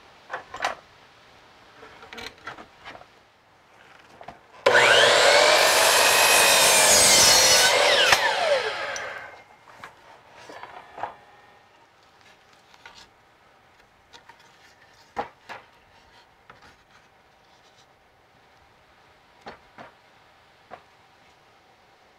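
DeWalt sliding compound miter saw starting up about five seconds in and cutting through a rough-sawn cedar board for about three seconds. Its blade then winds down with a falling whine. Light knocks of the board being handled come before and after the cut.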